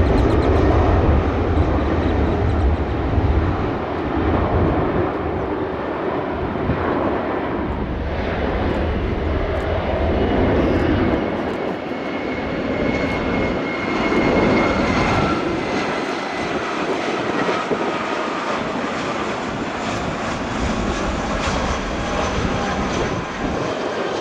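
Jet airliner engines at high power: loud steady jet noise with a heavy low rumble that drops away about eleven seconds in, and a faint whine sliding slightly down in pitch in the middle.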